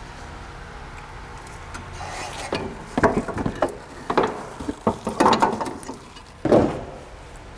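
Metal knocks, clunks and rattles as a new front strut assembly is worked into place at the steering knuckle with hand tools. The knocks come in several short clusters after a quiet start, and the loudest clunk comes near the end.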